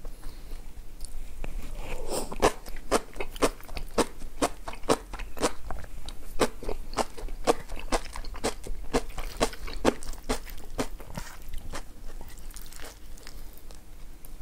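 A person chewing food close to the microphone, with sharp crunches in an even rhythm of about two a second that start a couple of seconds in and fade near the end.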